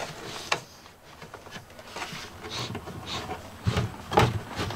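Hands packing electrical wires and wire nuts into an outlet box, heard as scattered light clicks, rustles and knocks, with a couple of louder dull thumps near the end.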